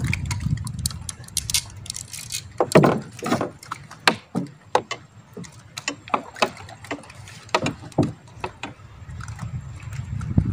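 Irregular clicks, knocks and small rattles of a freshly caught small fish being handled and unhooked in a wooden boat, with the loudest knock a little under three seconds in. A low rumble fades out after about two seconds.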